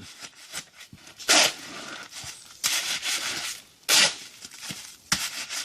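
Steel shovel scraping and turning a mortar mix by hand, about four rough scrapes at uneven intervals.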